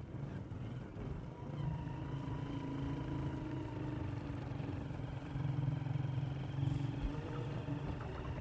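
A vehicle's engine running steadily while driving along a rough dirt road, its hum a little louder about two thirds of the way through.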